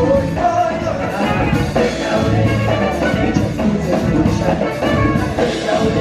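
Loud, continuous music with a singing voice.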